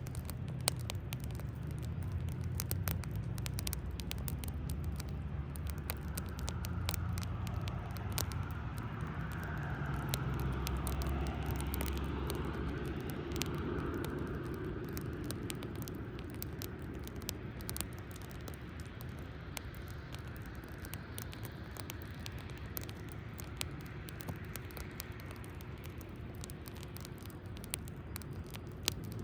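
Wood fire crackling, with sharp pops and snaps all through. A car's low rumble rises and passes in the first half, fading about halfway.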